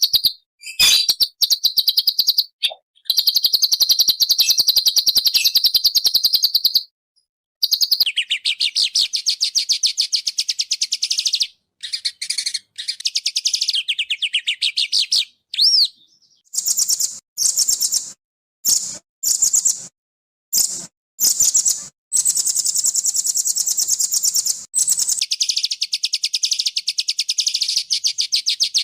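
A small songbird singing very rapid, dense trills of closely repeated high notes, in long phrases broken by short pauses, with a stretch of short bursts in the middle.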